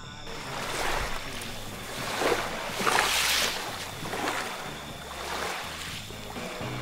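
Sea waves washing onto a beach, the surf swelling and fading several times.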